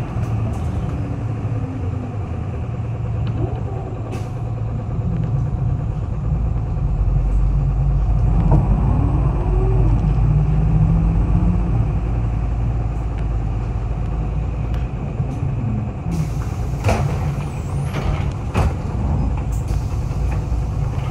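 City bus running, its engine getting louder about a third of the way in, with a few brief rising-and-falling whines. Near the end come several sharp hisses of air from the air brakes.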